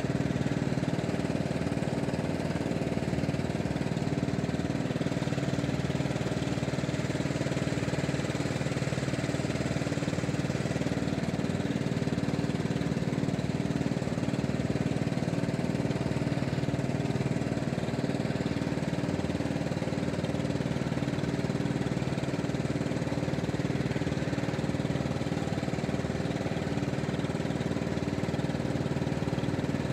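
A small engine running steadily at one even speed, without change.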